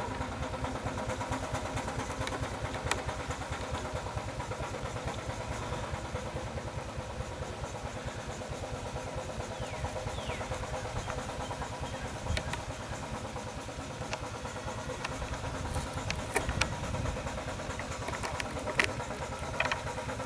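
5/8-scale Wood Brothers steam traction engine running, its beat rapid and steady, with a few sharp metallic clanks, more of them in the second half.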